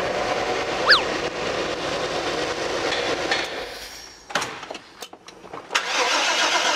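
1995 Chevrolet van's engine running just after a test start with a newly fitted fuel pump and very little fuel in the tank. It dies away about four seconds in, a few sharp clicks follow as the key is worked, and it catches and runs again near the end.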